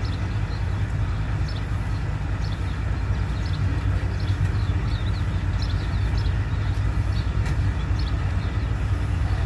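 Diesel engine of a container truck idling steadily, a continuous low rumble, with short high chirps scattered over it.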